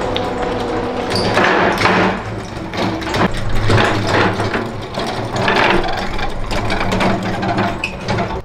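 A heavy steel cauldron stove on small casters rattling and clanking as it is rolled over concrete and brick paving, with irregular knocks about every half second to a second over a steady rolling rumble.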